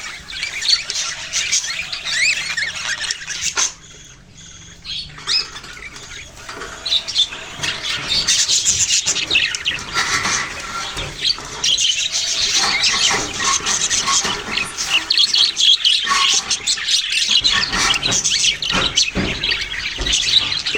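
Budgerigars chirping and chattering in a dense, rapid warble, with a brief lull about four seconds in.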